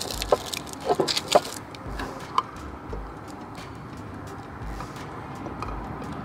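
A few sharp clinks and rattles of a glass jar knocking against a glass measuring cup during the first second and a half. Faint handling ticks follow, with one more light clink about two and a half seconds in.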